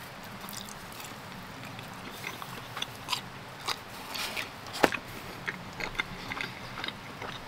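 Close-miked chewing and biting of pizza: irregular wet mouth clicks and small crunches, the sharpest about five seconds in.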